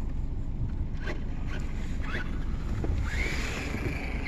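Low steady wind and road rumble, with a few faint short chirps; about three seconds in, a high whine rises in pitch and then holds steady as the Traxxas Rustler's brushless electric motor spins up and the RC car picks up speed.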